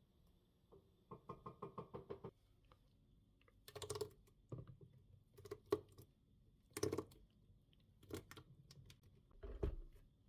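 A quick run of light clicks, then a handful of separate sharp knocks and clatters, as of household objects being handled.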